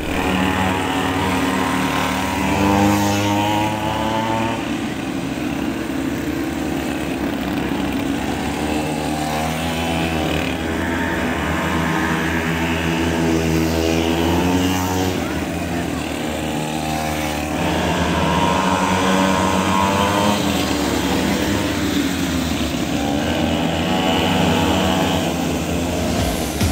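Mini GP racing motorcycles' small engines revving up and down over and over, the pitch rising and falling every few seconds as the bikes accelerate and slow through the course.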